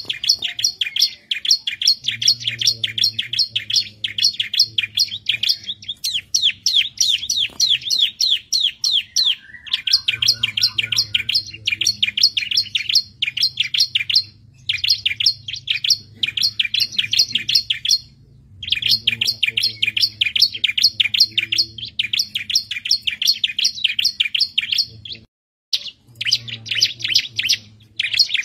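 Bar-winged prinia (ciblek) singing: long phrases of rapid, repeated high chirping notes, each phrase lasting a few seconds, with brief pauses between them.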